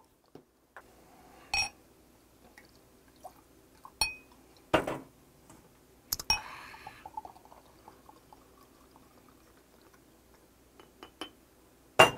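Sharp clinks of a glass beer bottle and a drinking glass knocking together, with a brief pour of beer into the glass about six seconds in.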